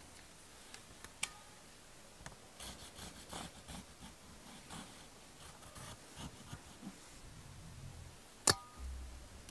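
Black marker rubbing and scratching over a thin 0.5 mm brass sheet as a blade outline is traced, with small handling noises of the sheet. Two sharp clicks with a brief metallic ring, one about a second in and a louder one near the end.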